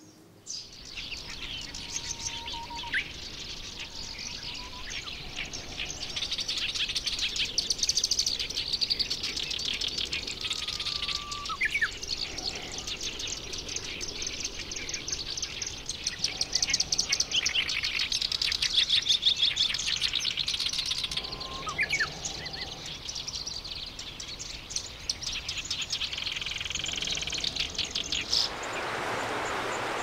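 Black-browed reed warbler singing a long, fast, scratchy chattering song made of rapidly repeated notes. A few short separate whistles from another bird come through beneath it. Near the end the song stops and gives way to a steady rushing noise like a stream.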